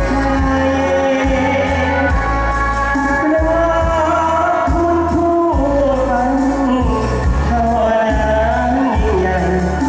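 A male singer singing a Thai luk thung song through a PA, over amplified band music with a steady beat and a heavy bass.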